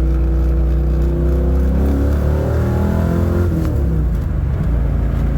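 Freshly rebuilt Ford Mustang fastback engine pulling under load, rising in pitch from about two seconds in and then dropping sharply, as at a gear change. The engine is being driven hard to seat its new file-to-fit piston rings.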